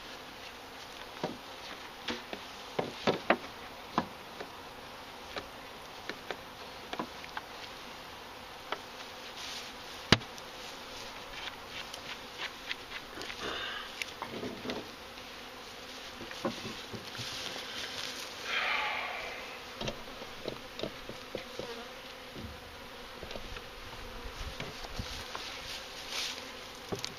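Honeybees buzzing steadily around freshly installed package hives, with scattered short knocks and clicks as hive and feeder parts are handled.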